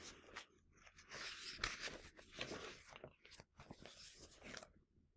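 Faint rustling and crackling of a picture book's paper pages being handled and turned, in several short spells with a few sharp clicks, stopping a little before the end.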